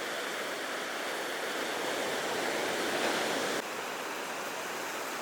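Ocean surf washing onto a beach as a steady rush of water. It swells to a peak about three seconds in, then drops off suddenly.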